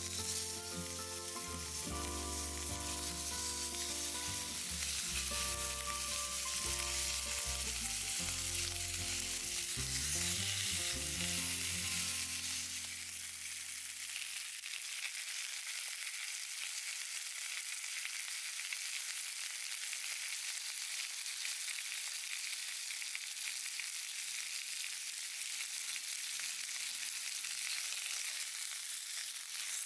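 Steady sizzling of food frying over a campfire, a constant high hiss. Background music plays over the first half and stops about halfway through.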